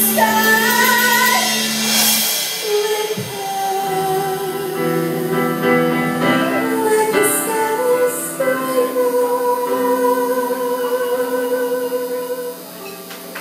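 A woman sings live through a microphone, backed by keyboard and electric guitar. A long note is held through the second half, and the music drops away just before the end.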